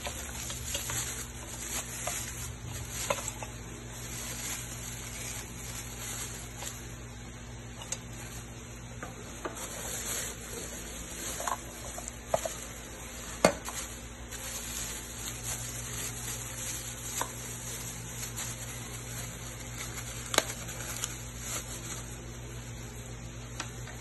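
Plastic wrap crinkling and rustling while the lid and metal inner pot of a new rice cooker are handled, with a few sharp clicks and knocks of metal and plastic parts. The loudest knock comes a little past halfway, and a second one near the end.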